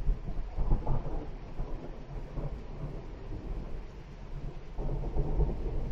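Rolling thunder rumbling low and continuously, swelling about a second in and again near the end.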